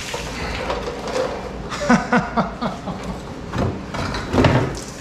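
Plastic footwell panel of a Can-Am Outlander ATV scraping, creaking and knocking against the frame as it is forced free, with a quick run of short squeaks about two seconds in and a couple of sharp knocks later.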